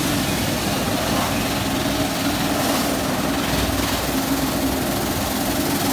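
Touch-free car wash equipment running: a steady, loud rush of high-pressure water spray over a low pump hum.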